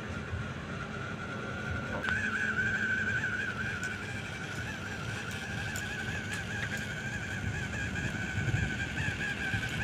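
Small RC truck's electric motor and gears running as it crawls slowly, over a steady hiss; about two seconds in, a high, slightly wavering whine comes in and holds.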